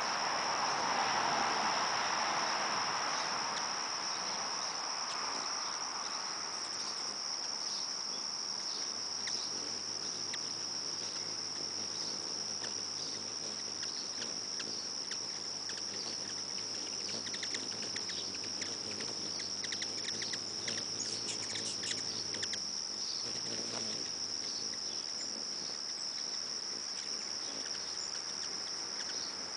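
Crickets trilling steadily in one continuous high-pitched chorus. A soft rushing noise sits under it for the first few seconds and then fades away.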